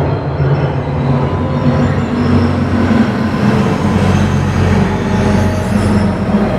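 Dense, rumbling electronic drone with several held low tones, part of an ambient sound-effects soundscape.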